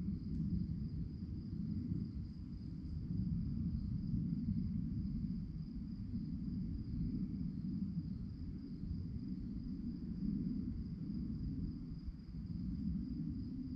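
Crickets chirping in a steady, continuous high trill, over a louder low rumble.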